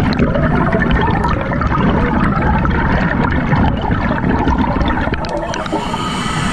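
Scuba diver's exhaled bubbles gurgling and crackling up past the underwater camera housing, with a steadier hiss coming in near the end.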